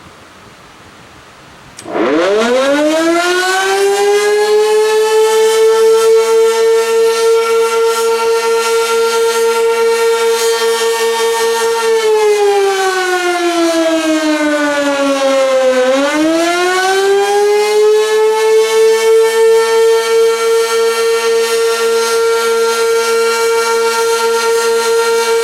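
Sentry 16V1T-B electromechanical outdoor warning siren sounding the attack signal on a test. It starts about two seconds in, winds up quickly to a steady loud tone that wavers slightly as the head rotates, then slides down in pitch about halfway through. It winds back up, holds again, and begins to drop right at the end.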